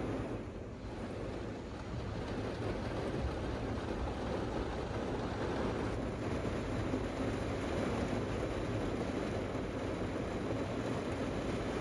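Steady rushing noise of a night rainstorm with wind, even and unbroken.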